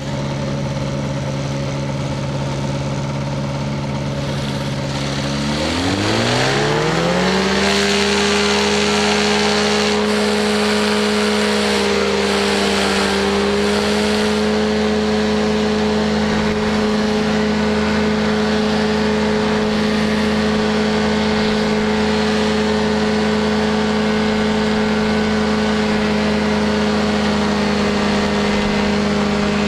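Powered parachute's engine and pusher propeller running at low power, then throttled up about six seconds in, its pitch rising to full takeoff power and holding steady through the takeoff roll and climb.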